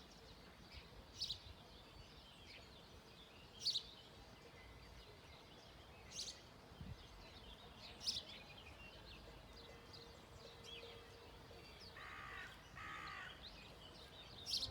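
Wild birds calling in woodland: a short high call repeated every two seconds or so, and two lower, harsher calls near the end, over faint outdoor background.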